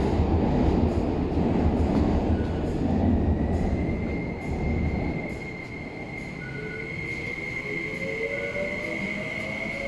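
MTR SP1900 electric multiple unit pulling out of the platform and accelerating. A heavy rumble from the moving cars eases off about five seconds in. A high whine comes in partway through, and a lower whine climbs in pitch from the traction motors as the train picks up speed.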